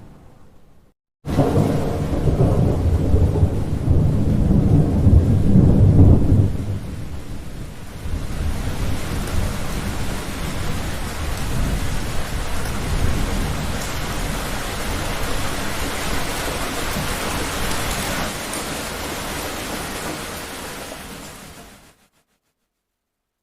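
A thunderclap breaks in suddenly about a second in and rumbles low and loud for several seconds, then gives way to steady heavy rain, which fades out near the end.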